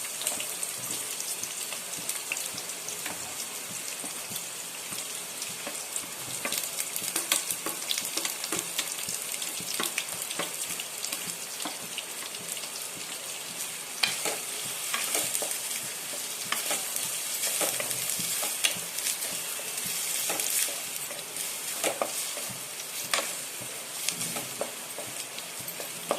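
Onions frying in hot oil in a kadhai, a steady sizzle, with the spoon clicking and scraping against the pan now and then as they are stirred.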